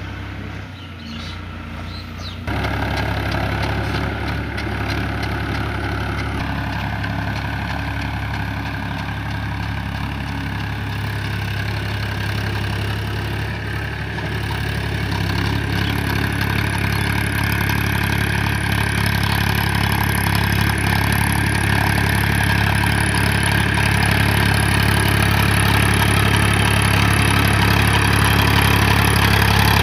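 Powertrac Euro 50 tractor's diesel engine running steadily under load as it pulls a rotavator, with a steady low hum that jumps louder about two seconds in and keeps growing louder toward the end.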